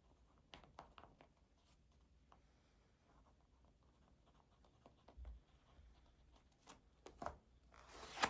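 Pen writing on paper: faint, scattered scratches and small taps, with a louder brushing sound near the end.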